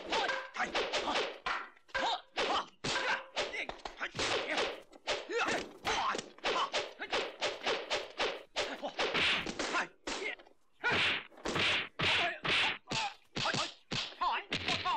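Dubbed kung fu film fight sound effects: a rapid run of sharp punch and staff-strike whacks, about two a second, from a 1970s Hong Kong martial-arts fight.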